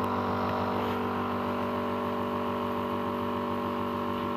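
Two small battery-powered DC toy motors running on a cardboard-box robot, spinning corks with popsicle sticks attached: a steady whirring drone of several tones. It makes lots of noise, but the robot does not move.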